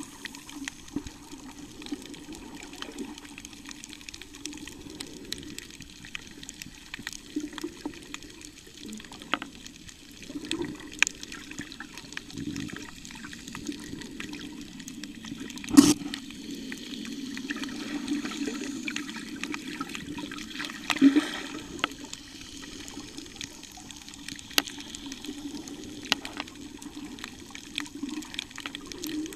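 Muffled underwater sound picked up by a submerged camera: a steady, wavering low rush of moving water with scattered sharp clicks, the loudest about sixteen seconds in and another near twenty-one seconds.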